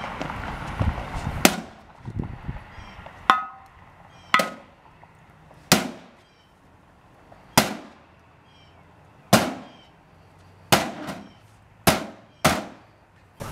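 A wooden bat whacking a CRT television's plastic cabinet about ten times, each blow a sharp crack, some with a brief ringing. The blows come every second or two and closer together near the end.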